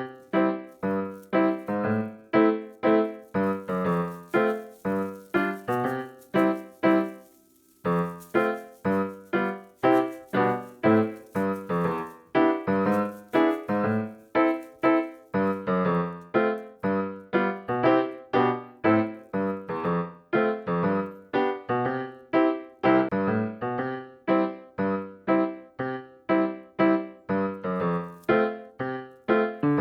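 Background piano music: a steady run of struck notes, about two a second, with a brief pause about seven seconds in.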